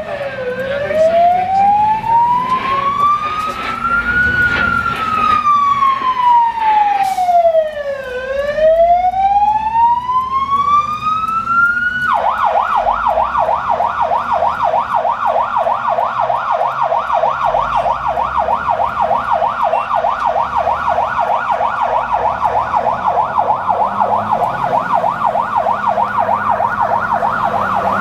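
Fire engine siren on an emergency call. It starts as a slow wail rising and falling about every four seconds, then switches suddenly, about twelve seconds in, to a fast yelp that keeps going.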